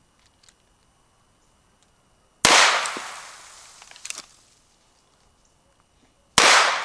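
Two revolver shots about four seconds apart from a convertible revolver that takes 9mm or .357 Magnum cylinders. Each is a sharp crack followed by a long echo that fades over a second or more.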